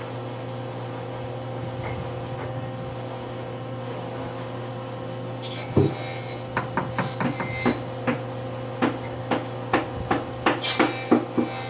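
A steady electric hum, then from about six seconds in a run of sharp knocks and taps on wood, about two a second, with some scraping between them.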